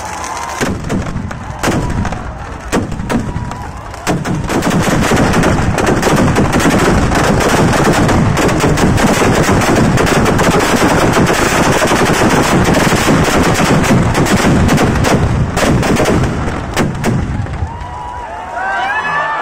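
Firecrackers packed inside a burning Ravan effigy going off. Scattered loud bangs for the first few seconds give way to a dense, continuous rapid crackle of explosions like machine-gun fire for about twelve seconds, which thins out near the end.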